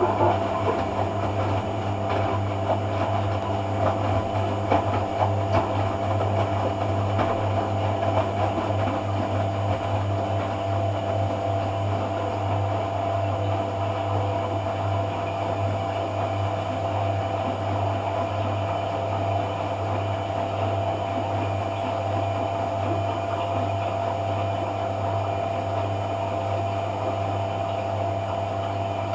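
Hoover AC166 Classica 1200 automatic washing machine running in its cotton rinse programme: a steady low mains hum with an even water-pumping, churning sound over it.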